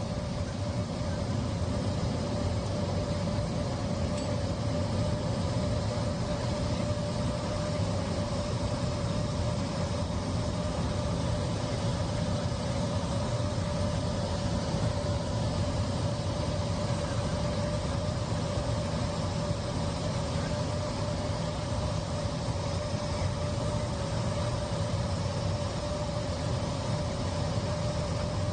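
Airliner cabin noise in flight: a steady rush of engine and airflow with a constant low rumble and one steady hum-like tone held throughout.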